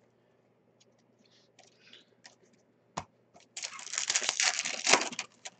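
Hockey card pack wrapper being torn open and crinkled: faint rustles, a single sharp tap about three seconds in, then a loud burst of crackling and tearing lasting under two seconds near the end.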